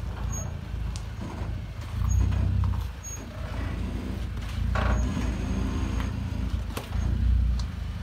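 Third-generation Toyota Tacoma's engine running at crawling speed over rocks, swelling three times with short pushes of throttle, with a few sharp clicks.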